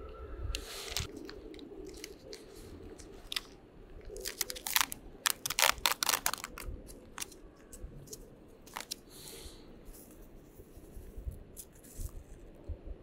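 Coffee drip-bag packet being handled and torn open: the plastic outer packet crinkles and tears, with a dense run of sharp crackles a few seconds in, then the paper filter bag rustles as it is torn open.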